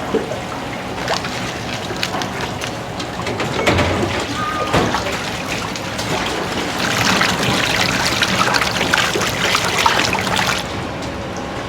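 Kitchen water running and splashing, with scattered clinks and knocks of utensils. The splashing gets louder for a few seconds in the second half and then stops abruptly.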